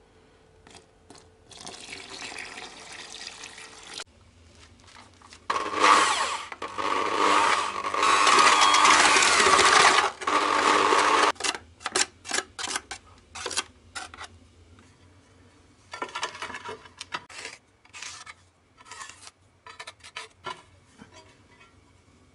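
Electric drill with a paddle mixer stirring cement-based tile adhesive in a bucket: a short run, then a longer, louder run of about six seconds. After that come scattered scrapes and knocks in the bucket.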